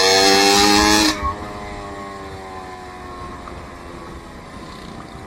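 A motor vehicle engine revs loudly close by, its pitch rising. About a second in the sound drops off sharply, leaving a fainter engine tone whose pitch slowly falls.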